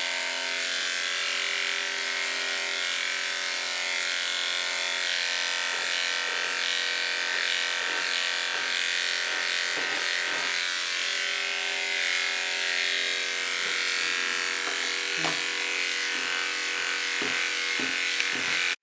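Cordless electric pet clippers running with a steady motor hum as they shave matted fur off a long-haired cat.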